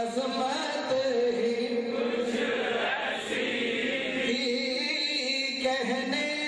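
Male voice singing a naat, an Urdu devotional praise poem, into a microphone, drawing out long held notes with gentle melodic turns.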